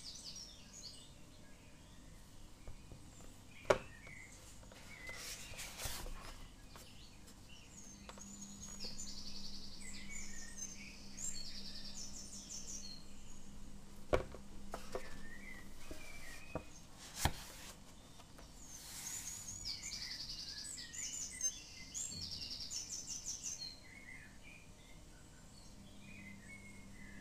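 Small birds chirping and trilling in quick, high phrases throughout, with three sharp clicks standing out, about four, fourteen and seventeen seconds in.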